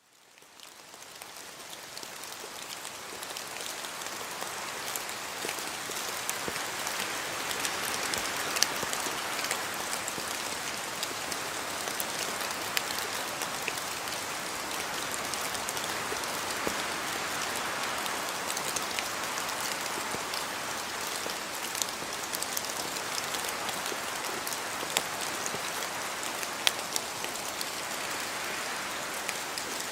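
Steady rain falling on a surface, with single drops ticking sharply now and then. It fades in over the first couple of seconds.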